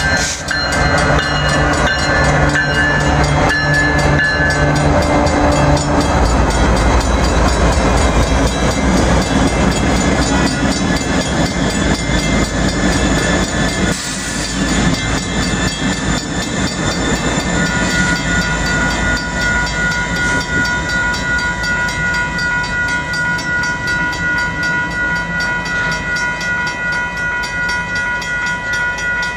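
Several Union Pacific diesel locomotives passing close by through a grade crossing. The air horn finishes a blast about five seconds in, then the heavy, deep engine rumble and steel wheels on the rails take over, loudest as the units go by. A steady ringing, typical of the crossing bell, runs under it.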